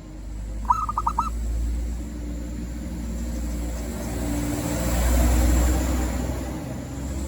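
A zebra dove gives a short run of about five quick coos about a second in, then the rumble of a passing vehicle swells, loudest around five seconds in, and fades.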